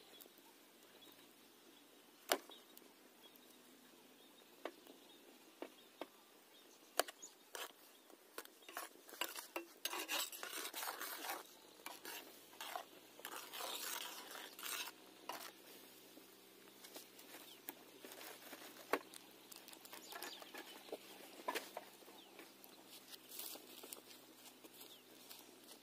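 Metal spatula scraping and clinking against a black iron kadhai while soap pieces are stirred in boiling water. Sharp single clinks come now and then, with a dense stretch of scraping and clatter near the middle.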